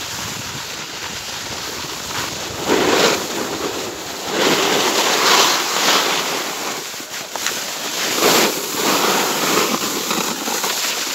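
Snowboard sliding down a snowy slope: a steady rush of the board on the snow mixed with wind on the microphone, swelling louder three times.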